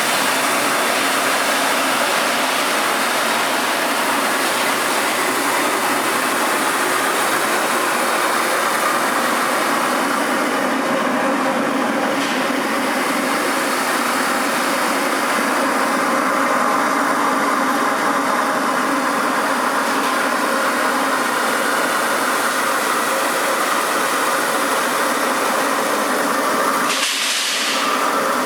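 Rice milling machine running steadily, with a loud, even mechanical noise as it mills paddy.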